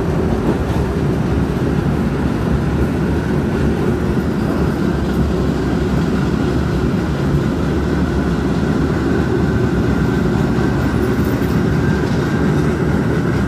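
New York City subway train running through a tunnel: a steady, loud rumble of wheels on rail.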